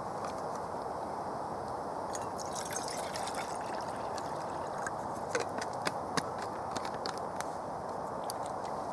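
Water poured from a plastic bottle into a stainless steel mug, trickling and dripping, with a few sharp clicks about halfway through.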